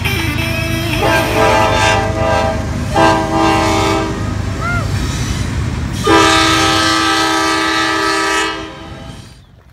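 Train air horn sounding three blasts, each a chord of several tones: a shorter one about a second in, a brief one around three seconds, and a longer one of about two seconds near the end, over the low rumble of a passing train.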